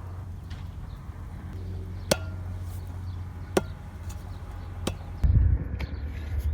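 Three sharp knocks about a second and a half apart, each with a brief ring after it, over a steady low rumble.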